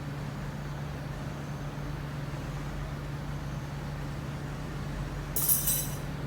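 Motorbike engine running steadily at idle, a low even hum. About five seconds in, a short sharp hiss cuts across it.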